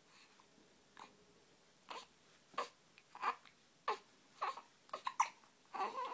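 A baby with the hiccups fussing: a run of short, sharp hiccup sounds and little cries, about one every half second to second, coming closer together near the end.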